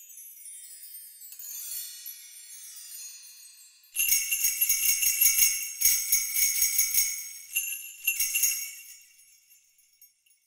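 Sampled small bells from the Orchestral Tools Abacus library: high tinkling tones falling away for the first few seconds, then jingle bells shaken in two bursts, starting about four seconds in and again near eight seconds, ringing out near the end.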